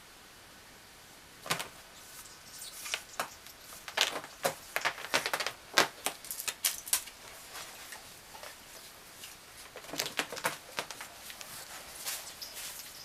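A cat's claws scratching and scrabbling on a sofa's fabric upholstery in short bursts of rasps and clicks as it climbs the sofa back, busiest in the middle and again near the end.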